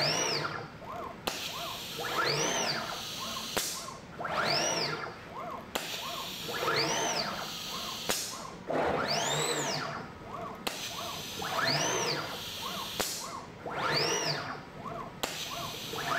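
Pick-and-place machine's motors whining up and then back down in pitch with each move of the suction head, repeating about every two seconds, with a sharp click between moves.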